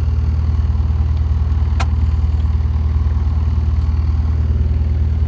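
Bobcat S205 skid steer's turbocharged four-cylinder Kubota diesel running steadily at a low, even drone. A single sharp click sounds about two seconds in.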